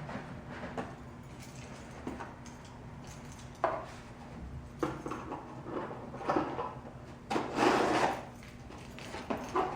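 Cardboard packaging being handled and unpacked: scattered knocks and rubbing, with a longer, louder scrape of cardboard about seven and a half seconds in.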